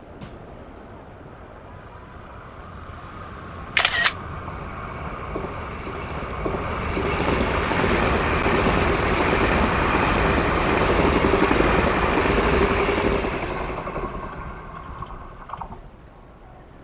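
A passenger train running through the station on the electrified line: a rushing rumble with a steady hum that builds, holds loudest for several seconds as the train passes, then fades away. A sharp double click about four seconds in, like a camera shutter.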